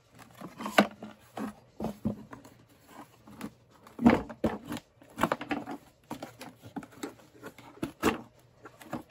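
Red plastic shop vac motor housing being turned over and handled: irregular knocks, clicks and scrapes of hard plastic as a part is worked loose, the loudest knock about four seconds in.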